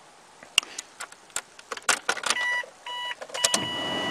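Keys clicking and rattling in the ignition of a 2000 Mazda MPV, then the dashboard warning chime beeping twice. About three and a half seconds in, the cold 2.5-litre Duratec V6 cranks and fires for a cold start, with the chime still sounding.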